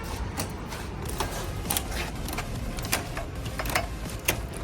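Light, sharp clicks and clinks, about a dozen at irregular intervals, over a steady low background hum.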